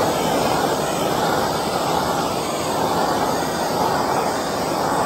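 Handheld gas torch flame burning steadily as it is swept over freshly poured epoxy to pop the surface bubbles.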